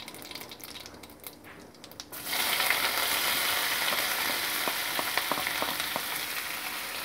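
Cumin seeds crackling softly in hot oil in a kadhai, then a sudden loud sizzle a little over two seconds in as sliced onions are tipped into the oil. The sizzle slowly eases off, with light knocks and scrapes of a wooden spatula stirring the onions.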